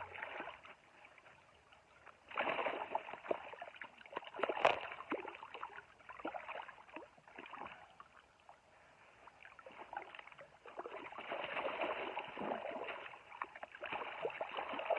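Water splashing and sloshing in irregular spells, with a sharp click about four and a half seconds in.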